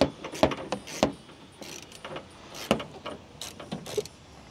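Socket wrench loosening a 14 mm shock mounting bolt: sharp metallic clicks and clinks in irregular strokes, a few a second.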